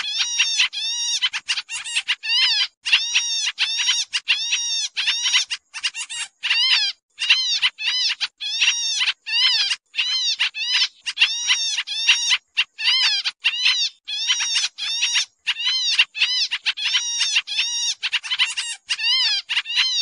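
Pied triller (kapasan kemiri) calling noisily: a rapid, near-continuous chatter of short arched notes in quick clusters, broken only by brief gaps.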